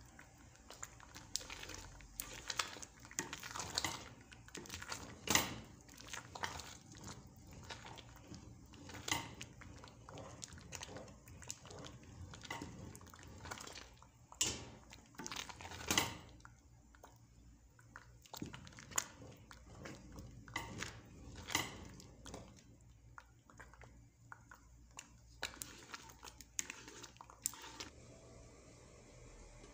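Wooden spoon stirring and mashing thick rice in a stone-coated pot, scraping and knocking against the pot's sides in irregular strokes, with a few sharper knocks. The strokes thin out near the end.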